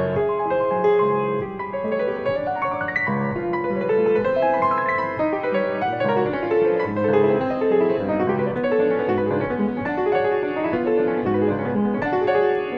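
Grand piano playing classical music: a continuous flow of many notes moving through the middle and upper registers, with sustained bass underneath.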